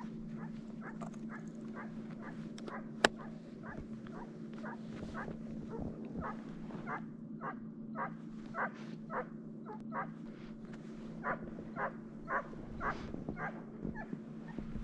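Russian hound giving tongue on a hare's trail: a long, steady series of barks, about two a second, growing louder in the second half. A single sharp click about three seconds in.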